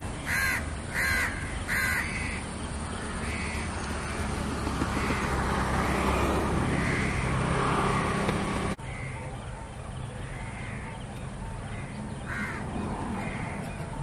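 Crows cawing: three loud caws in quick succession near the start, then fainter calls on and off, with another caw about 12 seconds in, over a steady low rumble.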